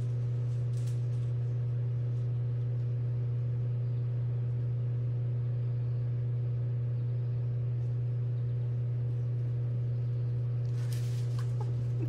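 A steady low mechanical hum, unchanging in pitch and level, like a motor or engine running, with a brief rustle about eleven seconds in.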